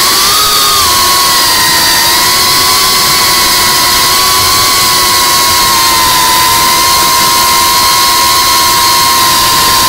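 GEPRC CineLog35 cinewhoop's brushless motors and ducted propellers whining at one steady high pitch under held throttle, over a loud rushing hiss. The pitch dips slightly about a second in, then stays level.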